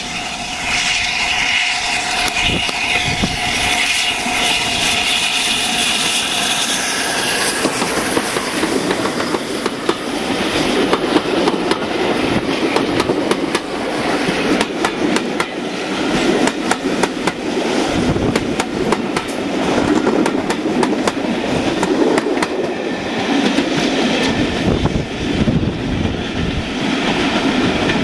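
Steam locomotive 60163 Tornado, an LNER Peppercorn A1 Pacific, running past with its train. The coaches then rumble by, their wheels clicking over the rail joints in a quick rhythm that carries on until near the end.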